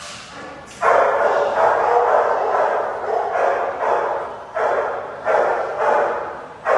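A dog barking repeatedly and loudly, about one bark a second, starting about a second in.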